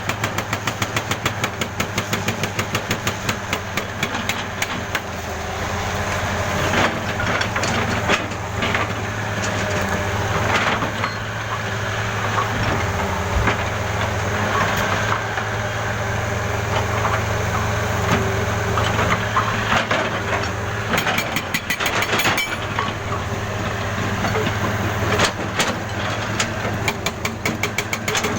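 Jackhammer hammering in rapid, even strokes, with a steady engine hum underneath. Through the middle the stroke pattern breaks up into irregular hits and sharp cracks before the fast hammering resumes near the end.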